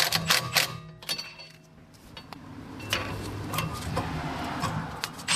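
Cordless Milwaukee impact wrench running in the hub bearing bolts to seat the new wheel hub assembly. Sharp metallic clicks and clinks fill the first second, and a steadier run of about two seconds starts about three seconds in.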